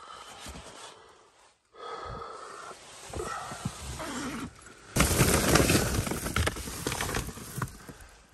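Zipper of a rooftop tent's door being pulled open, then a louder stretch of rustling tent fabric from about five seconds in as the door is pushed aside.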